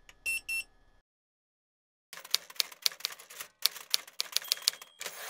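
Typewriter sound effect: a fast run of key clacks as a line of text is typed out. Near the start, two short electronic beeps from the soldering station's control.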